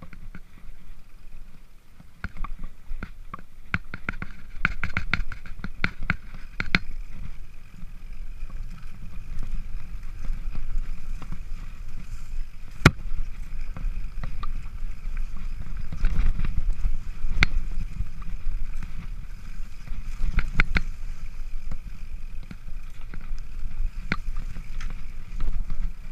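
Mountain bike ridden over a rough grassy trail, heard from a camera mounted on the handlebars. There is a steady low rumble, with frequent sharp knocks and rattles as the bike bounces over bumps.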